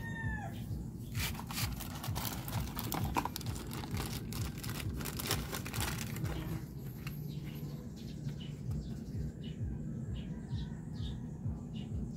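A plastic parts bag crinkling and small plastic fuel-pump parts clicking as they are handled. A rooster's crow tails off at the very start, and small birds chirp in the background in the second half.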